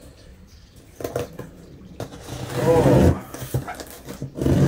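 Cardboard package being handled and opened: a few light clicks and scuffs, then about two seconds in a louder scraping rub with a brief squeak, and more rubbing and rustling near the end.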